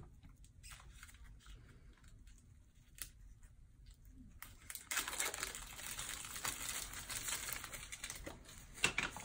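A few faint clicks at first, then from about five seconds in a steady crinkling rustle as gloved hands handle surgical gauze, with one sharp click near the end.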